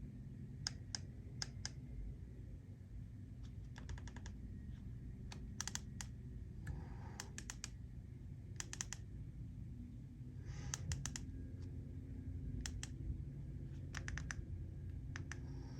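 Faint scattered clicks and taps in small clusters, with a brief rustle or two, over a low steady hum: hands handling and adjusting lighting equipment.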